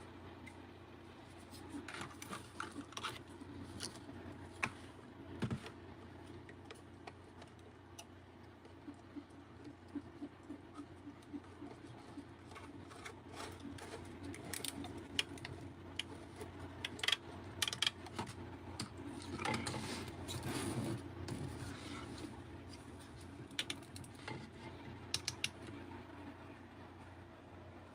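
Irregular clicks and light clatter of small hard objects being handled, with a longer scraping stretch about twenty seconds in, over a steady low hum.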